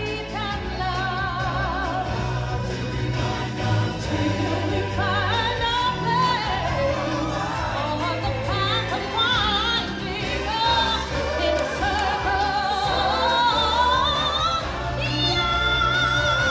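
Stage-show music: several voices singing with a wavering vibrato over a band backing with a steady bass.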